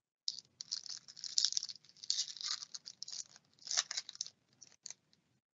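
Foil wrapper of an Upper Deck Synergy hockey card pack crinkling and tearing as it is opened by hand, in a run of irregular crackles.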